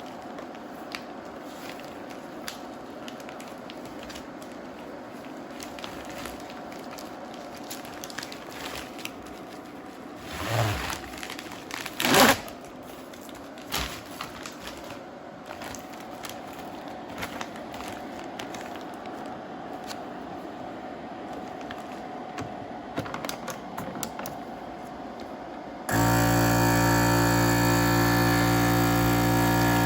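Plastic vacuum-seal bag handled, with light crinkling, clicks and a couple of knocks. About 26 s in, a vacuum sealer's pump switches on with a loud, steady motor hum as it starts drawing the air out of the bag.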